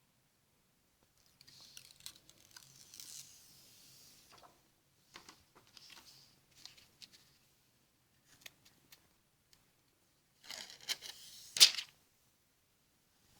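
Plastic screen-protector film and kit packaging being handled and peeled, with light rustling and small clicks, then a louder rip of film or packaging near the end.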